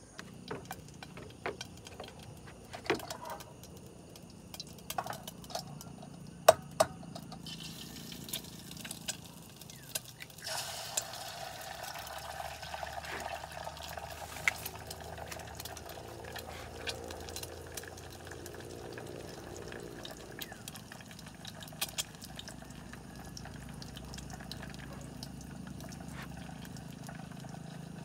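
Portable butane camping stove burning under a small pot with an egg frying in it: a steady sizzling hiss that starts about ten seconds in, after a few scattered small knocks and clicks.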